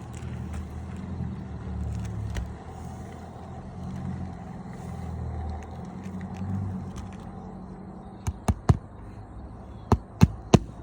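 A low rumbling noise, then six sharp knocks near the end, in two quick groups of three.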